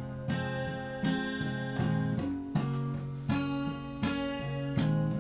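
Acoustic guitar strummed in a steady rhythm, a chord struck about every three-quarters of a second with the chords changing along the way: an instrumental gap in a country song.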